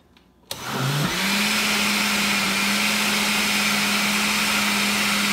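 Countertop blender switched on with a click about half a second in. Its motor spins up within about half a second and then runs at a steady high speed, blending a pitcher of liquid flan batter.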